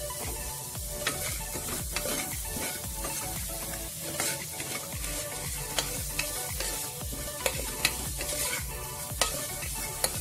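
Vegetables sizzling as they fry in ghee in a metal pot, stirred with a metal spatula that scrapes and knocks against the pot many times.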